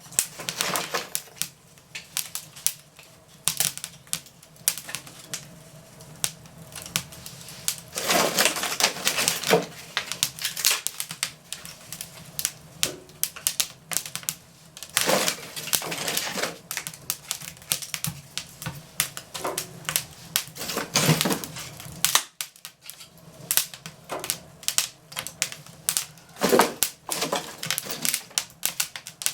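Fireplace fire of thin fruit-crate wood crackling and popping: dense, irregular sharp snaps, with a few louder flurries of crackling.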